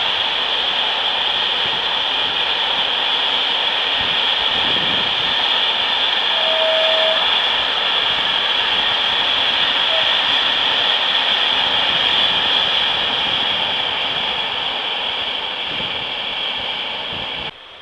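Train passing on Italian mainline track: a steady rushing rail noise that swells toward the middle and then eases off, cut off suddenly near the end.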